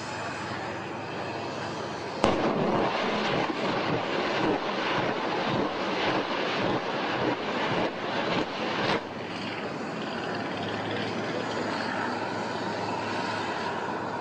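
A TOS-1 rocket launcher on a tank chassis firing a salvo: a sudden blast about two seconds in, then rapid launches roughly two a second for about seven seconds, which stop abruptly. A steady low drone carries on afterwards.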